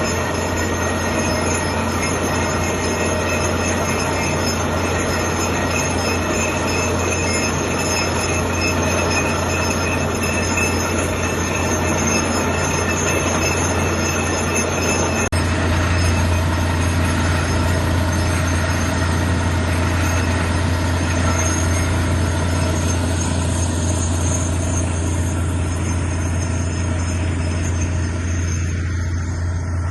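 Loud, steady machine noise: a continuous low hum with several high, squealing tones held over it, shifting slightly about halfway through.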